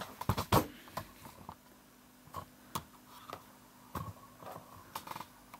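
Irregular light clicks and taps, several in the first second and then a few scattered ones, over a faint steady hum.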